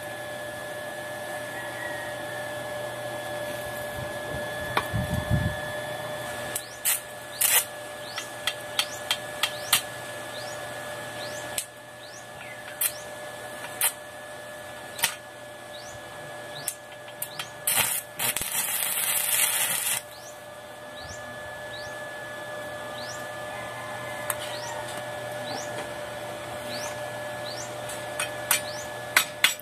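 Hand hammer knocking on a steel workpiece: scattered sharp metal knocks, a brief hissing burst of about two seconds past the middle, and a quick run of blows starting near the end, over a steady faint whine.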